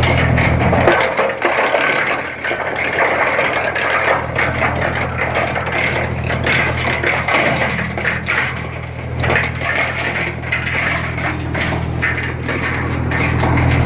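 Geo Tech TCP 100 PTO-driven wood chipper running off a Massey Ferguson 140 tractor, chipping branches: a steady engine hum underneath constant crunching and irregular cracking of wood.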